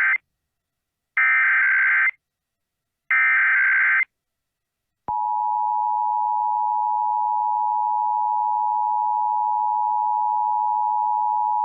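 Emergency Alert System Required Monthly Test: the end of one SAME header data burst, then two more buzzy, screeching digital data bursts of about a second each, a second apart. About five seconds in, the EAS two-tone attention signal (853 and 960 Hz) starts and holds steady.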